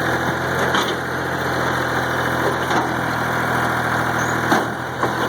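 Backhoe engine running steadily while its bucket compacts trash in a dumpster, with a few faint knocks. The engine's low note changes near the end.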